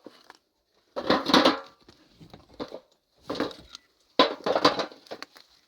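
Hand digging into stony earth: several separate strokes at irregular spacing, the sharpest and loudest about four seconds in.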